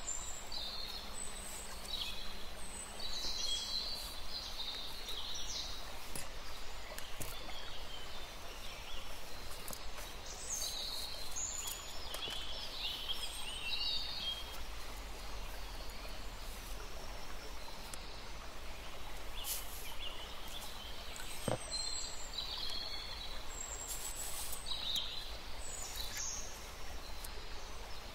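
Birds chirping in short, scattered bursts over a steady background hiss.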